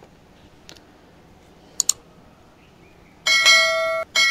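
Subscribe-button overlay sound effect: a quick double mouse click, then a bright bell ringing in two strikes, the second left to ring out.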